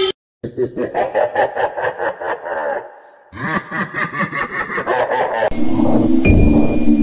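A person laughing in two runs of quick, rhythmic bursts. About five and a half seconds in, background music begins with a steady low chord and a high electronic ping.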